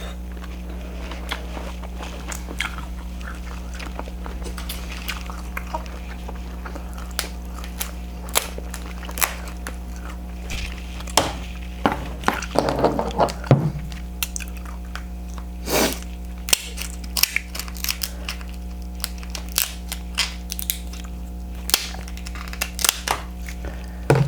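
King crab shell being cracked and the meat chewed up close: scattered sharp cracks and wet mouth sounds, sparse at first and much busier from about halfway through, over a steady low hum.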